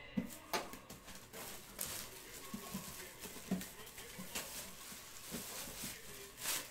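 Faint handling noise: scattered clicks, knocks and rustling as cardboard boxes are picked up and moved.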